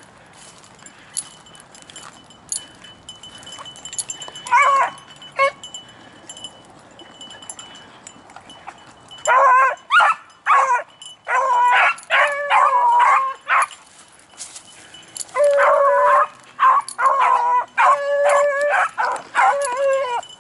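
Beagle baying: a couple of bays about four to five seconds in, then a steady string of bays from about nine seconds on.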